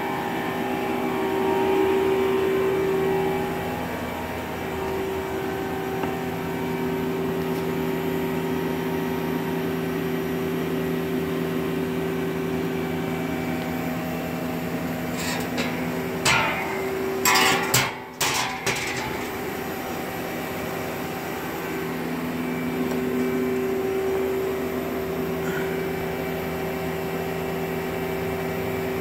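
Mazak Quick Turn Nexus 200 CNC lathe under power, its pumps and cabinet fans giving off a steady hum with a few held tones. A little past halfway there are a few seconds of clatter and rustle.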